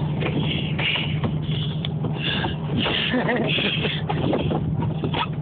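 Dodge Dakota pickup's engine running steadily, with hissing noise coming and going over it.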